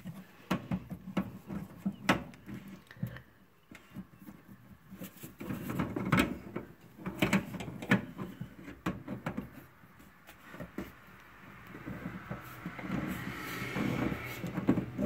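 Irregular clicks and knocks of hands and a tool working the water supply hose coupling loose from the back of a washing machine, with some rubbing and scraping near the end.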